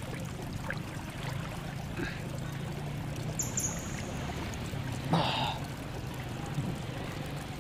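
Seawater lapping and sloshing around a swimmer, with one louder splash about five seconds in as an arm moves through the water, over a steady low hum.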